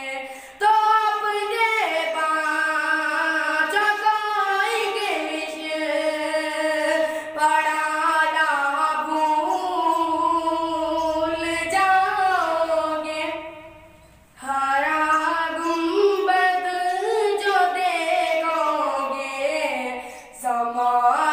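A boy singing a devotional nazm unaccompanied, in long held notes that glide and waver, with a short pause for breath about two-thirds of the way in.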